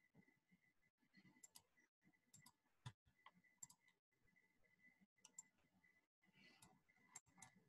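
Near silence with faint, scattered clicks of a computer keyboard and mouse as a link is typed and pasted into a chat.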